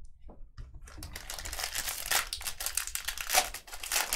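Foil trading-card pack wrapper crinkling as it is handled and opened, with a busy crackle starting about a second in.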